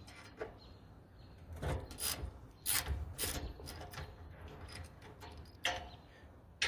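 Socket ratchet working on the bolts of a steel mower deck, with metal tools clicking and knocking against it: a scatter of sharp clicks, the loudest about three seconds in.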